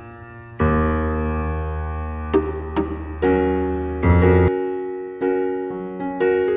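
Background music: piano or electric-piano chords, struck and left to ring, changing every second or so.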